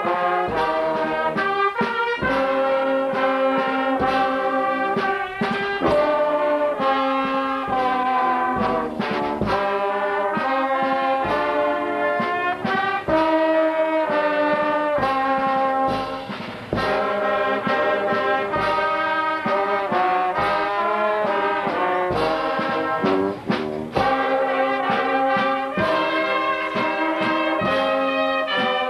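Brass band of trumpets and other brass playing a piece of held notes in chords, with a short break about sixteen seconds in.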